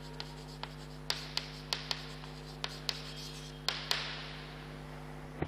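Chalk writing on a chalkboard: irregular short taps and scratches of the chalk as words are written, over a steady low hum.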